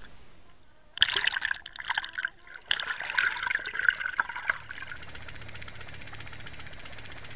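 Water splashing and bubbling over a towed underwater camera as it breaks through the surface and goes under, starting suddenly about a second in, followed by a steadier rush of water streaming past the camera.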